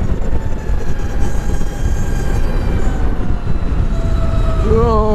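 Wind rushing over the microphone while riding a LiveWire electric motorcycle, with the motor's thin whine faintly audible and slowly falling in pitch as the bike eases off. Near the end a short wavering tone drops in pitch.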